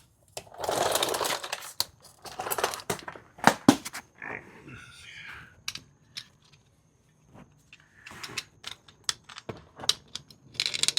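Rustling and a scatter of sharp clicks and knocks, the noise of a person moving about and handling things while getting under a car.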